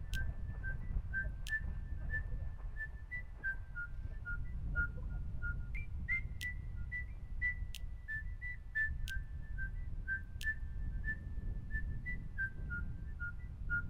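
Background music: a whistled tune of short clear notes that steps down in pitch and repeats about every six seconds, with light ticks in time, over a steady low rumble.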